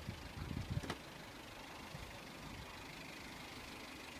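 Car engine idling faintly and steadily, with a few low bumps in the first second.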